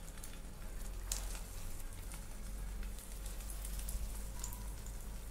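Hot oil sizzling in a frying pan as beetroot tikkis are laid into it to shallow-fry: a steady faint crackle with scattered small pops.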